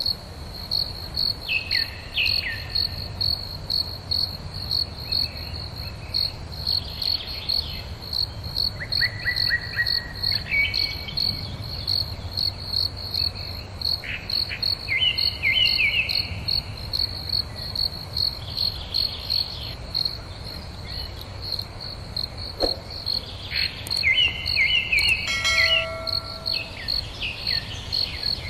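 A cricket chirping in an even, steady pulse, roughly two to three chirps a second, with birds calling now and then in short falling phrases.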